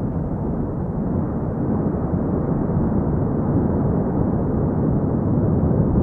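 Cumbre Vieja volcano erupting: a steady, deep rumble from its lava-fountaining vent, with no separate blasts.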